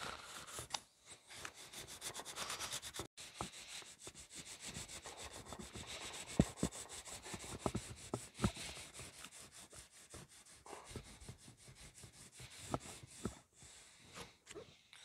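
800-grit wet/dry sandpaper on a flat micarta block rubbing back and forth over a steel knife blade, cleaning the residue off a freshly electrochemically etched logo. The strokes are quick and rhythmic, then ease off and grow fainter about two-thirds of the way through, with a few light knocks.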